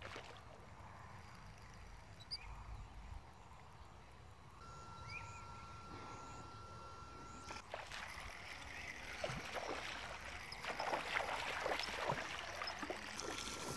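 Water splashing and sloshing at the surface of a weedy pond, starting about eight seconds in and busiest near the end.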